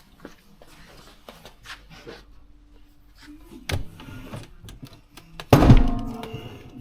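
Hand-lever tile cutter being tried out with a newly refitted blade: light clicks and knocks, a thud, then about five and a half seconds in a loud clunk as the blade comes down, ringing briefly. It is not cutting cleanly through the tile, which the users suspect is a blade fitted the wrong way round.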